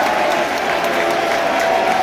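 Football crowd in a stadium clapping, with a steady din of many voices.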